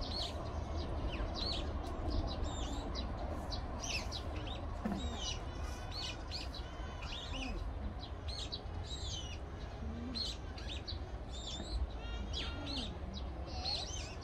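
Small birds chirping and twittering in many short, quick calls, over a steady low rumble.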